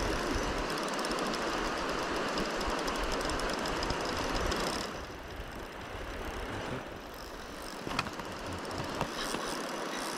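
A fast river current rushing steadily at the bank, with rapid fine ticking from a spinning reel as a hooked sea trout is played. One sharp click about eight seconds in.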